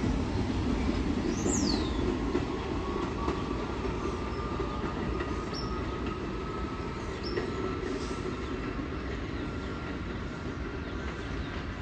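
R68-series subway train rumbling over the rails as it pulls away, its sound slowly fading, with a faint high wheel squeal.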